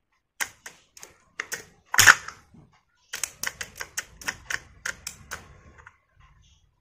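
Sharp clicking as a supply wire is touched on and off the terminals of a motor air-pressure horn's electromagnet, which pulls its plate down each time power reaches it. The clicks come unevenly at first, the loudest about two seconds in, then in a quicker run of about four or five a second from about three seconds in.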